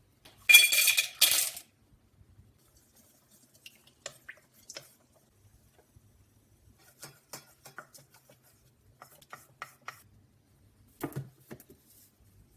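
Kitchen preparation sounds while making raw chocolate: a loud tearing, rustling burst, in two parts, about half a second in, then scattered light clicks and taps of utensils and containers, with a short knock near the end.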